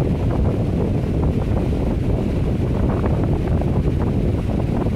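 Steady low rumble of air buffeting the microphone, with faint rustles and clicks of the phone box and charging cable being handled.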